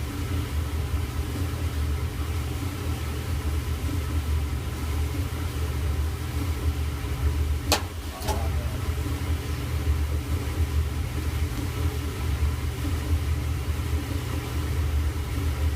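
Kenmore Elite clothes dryer running its steam refresh cycle: a steady low rumble and hum from the tumbling drum and motor. Two sharp clicks come about halfway through, half a second apart.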